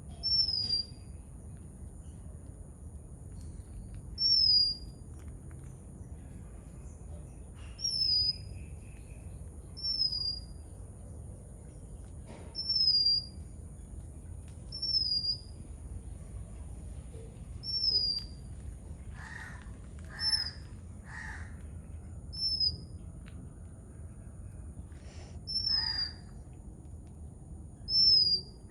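Oriental magpie-robin repeating a short, downslurred whistle, about one note every two to three seconds. Crows caw a few times in the second half.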